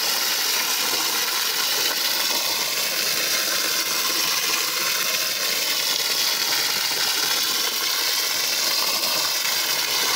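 Jet of water from a hose spray nozzle splashing into a tub of foaming fermented food-waste liquid fertilizer, a steady hiss as the tub is topped up with water.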